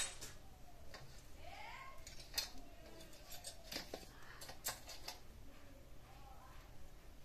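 Light metallic clicks and taps from a hand handling a brass puja plate and small utensils, a handful of separate knocks spread over a few seconds.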